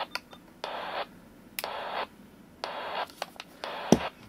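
UHF radio receiver giving short bursts of static about once a second as an unexplained intermittent signal on the 449.475 MHz PMR channel cuts in and out. A handling knock comes near the end.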